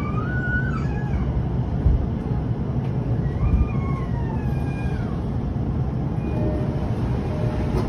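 Steady low rumble inside an E233-1000 series commuter train car as it slows into a station, with short high squeals that glide up and down in pitch and a couple of low knocks.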